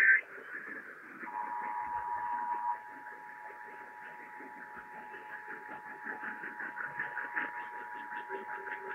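The Emergency Alert System two-tone attention signal, the 853 and 960 Hz tones sounding together as a steady dual tone, begins about a second in over radio static. It is loud for its first second and a half, then continues more quietly. It is preceded by the last fraction of a second of a buzzy EAS digital data burst.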